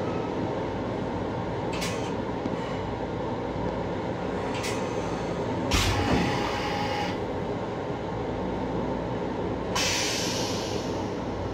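Long Island Rail Road M7 railcar running, heard from inside its restroom: a steady low rumble of the wheels and running gear, with a few sharp knocks and a louder thump about six seconds in. A hiss comes in near ten seconds and fades over about a second.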